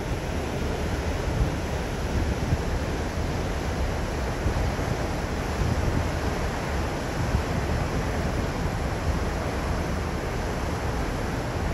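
Wind buffeting the microphone in small gusts over the steady rush of the MV Bretagne ferry's wake churning behind the stern.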